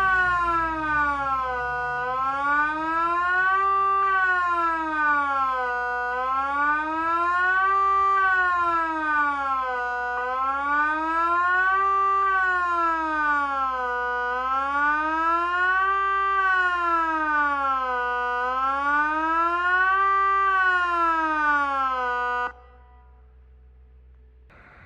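Kockum Sonics ET 30/3 electronic civil-defence siren sounding the Swiss general alarm: a loud wailing tone rising and falling evenly about every four seconds. It cuts off abruptly about 22 seconds in, leaving only a faint low rumble.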